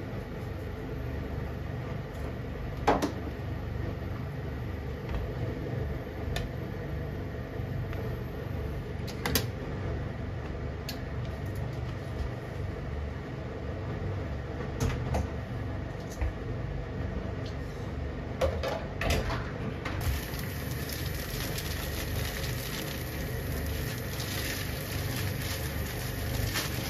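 Creamy soy-milk miso ramen soup simmering in a pan over a steady low rumble, with a ladle clicking against the pan a few times. About two-thirds of the way through, a steady hiss of noodles boiling in a pot of water takes over.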